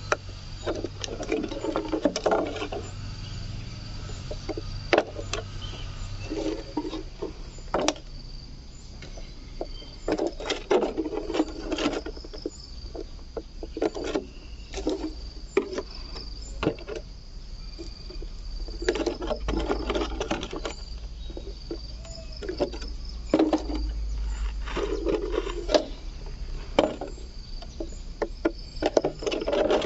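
Thin plastic bottle crackling and knocking in short bursts, again and again, as a hot soldering-iron tip is pushed through its wall to melt holes. Insects chirp steadily in the background.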